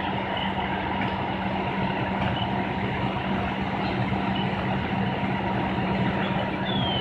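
A heavy engine running steadily at a constant speed, with an even low hum and no change in pitch.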